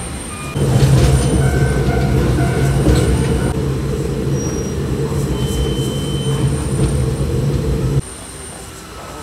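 Kominato Railway diesel railcar running, heard from inside the carriage: a loud, steady engine drone with rail and wheel noise. It starts about half a second in and cuts off suddenly near the end, leaving a quieter rumble.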